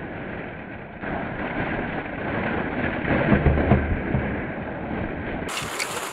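Hollow plastic ping pong balls rustling and clattering as two Italian greyhound puppies churn through a deep pile of them, mixed with wind noise on the microphone. The loudest moment is a heavy low rumble a little past the middle, as a puppy comes right up against the camera.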